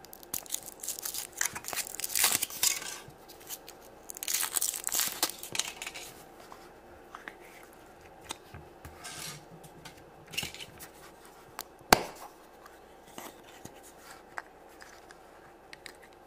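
Foil wrapper of a Kinder Surprise egg crinkling and tearing as it is peeled off, in two long bursts. Then the chocolate shell is split and the plastic toy capsule is worked open: scattered light clicks and one sharp snap about two-thirds of the way through.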